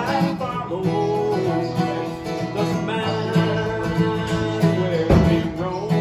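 Acoustic guitar played with a man singing along, the voice sliding between held notes. A louder low thump comes about five seconds in.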